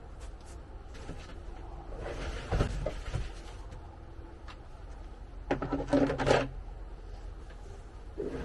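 Unboxing handling of a shipping box and its packing: irregular rustling and light knocks, in two louder spells about two seconds in and around six seconds in.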